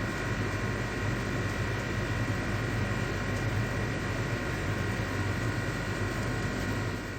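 Washing machine running, a steady motor hum with a faint whine and an even whoosh, unchanging throughout.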